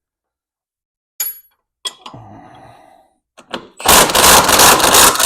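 A few short metallic clinks of tools, then about four seconds in an impact wrench starts hammering on a bolt: a loud, rapid rattle that is still going at the end.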